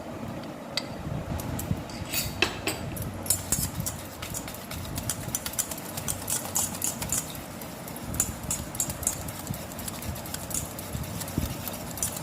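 A utensil stirring gram-flour (besan) batter in a bowl, with quick, irregular clicks and taps of the utensil against the bowl, mixing in the red food colour.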